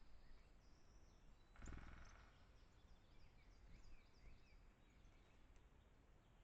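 Faint, distant small songbirds chirping and calling in a series of short high notes, over a quiet forest background. About one and a half seconds in there is one brief, louder noisy rustle close by.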